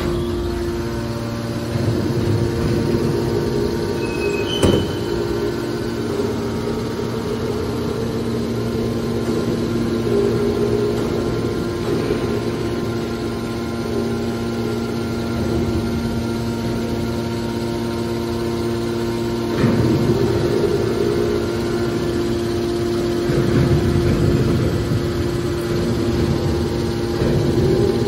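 Hydraulic scrap metal baler's electric motor and hydraulic pump running with a steady hum, with several louder swells and a single sharp knock about five seconds in.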